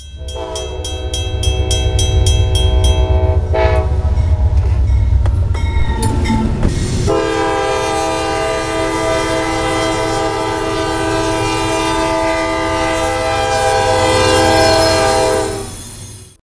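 Freight locomotive horn sounding a chord: one blast for the first three seconds or so, then a long steady blast from about seven seconds in that cuts off near the end. A heavy low rumble runs under the first half, and a fast ringing tick, about four strokes a second, goes with the first blast.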